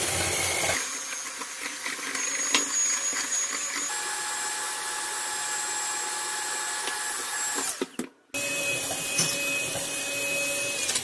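Handheld electric mixer running steadily with a motor whine as its beaters whip eggs and sugar into a pale, fluffy foam in a glass bowl. The sound breaks off briefly about eight seconds in, then runs on.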